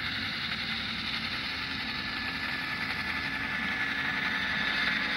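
HO scale model train, Intermountain F7 diesel locomotives, running on the layout: a steady mechanical hum and hiss with a faint steady whine, growing slightly louder near the end.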